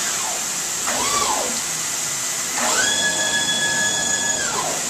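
CNC stone router working a countertop edge under a steady hiss of coolant water spray. About a second in a short whine rises and falls; from about two and a half seconds a stronger, higher whine rises, holds for over a second, then falls away.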